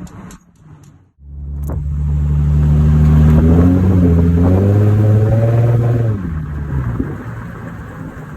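Nissan 350Z's V6 engine accelerating. After a brief silence it comes in loud about a second in, rises in pitch, then drops back near the six-second mark.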